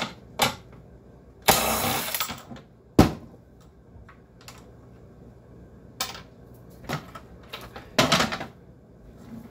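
Scattered clicks, knocks and short rattles of tools and metal parts while a dehumidifier's compressor bolts are being undone, with a sharp knock about three seconds in and longer rattling scrapes near two and eight seconds in.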